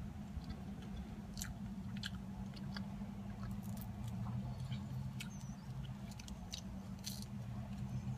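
A person chewing and biting cheese pizza with the mouth close to the microphone, making scattered small wet clicks and smacks. A steady low hum runs underneath.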